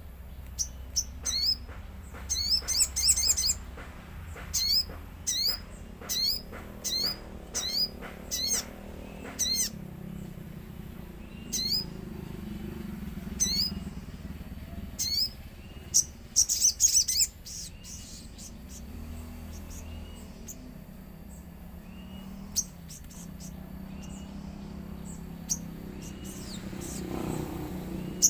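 Sogon (little spiderhunter) calling: sharp, high chirps about once a second, with quick runs of chirps near the start and around the middle, and sparser notes later on.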